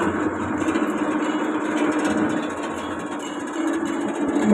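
Palm-oil screw press machine running, a steady mechanical drone.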